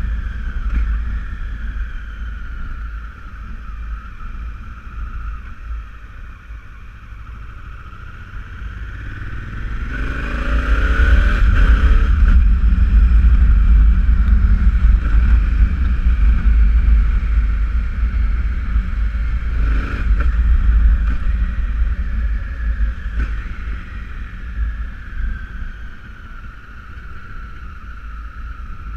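Honda CRF1000L Africa Twin's parallel-twin engine running on the road, pulling up in pitch about eight to eleven seconds in as the bike accelerates. A low rush of wind is loudest at speed and eases as the bike slows near the end.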